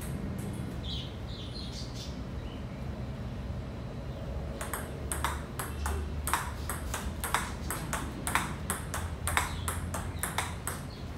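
Table tennis ball knocked back and forth in a forehand drill rally: from about four and a half seconds in, quick, even clicks of the ball off the bats and table, about three a second. A steady low hum runs underneath.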